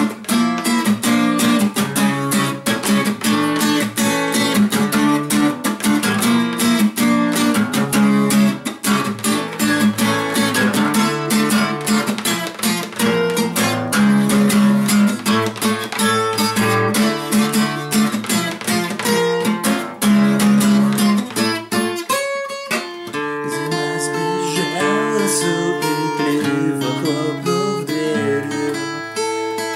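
Acoustic guitar strummed in a steady rhythmic chord pattern. About twenty-two seconds in, the playing eases into a lighter picked pattern with ringing notes.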